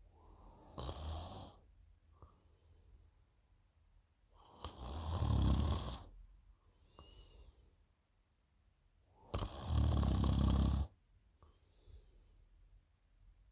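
A person snoring in sleep: three snores about four and a half seconds apart, the first softer and the last two loud and deep, each lasting a second or more, with faint breaths out between them.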